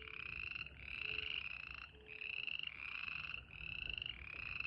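A chorus of frogs calling: overlapping pulsed trills about a second long, each rising slightly in pitch, following one another with short gaps.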